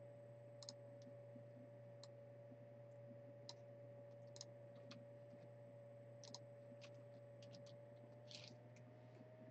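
Near silence with faint, irregular clicks, about a dozen in all, over a steady low electrical hum and a thin steady tone that drifts slightly upward near the end.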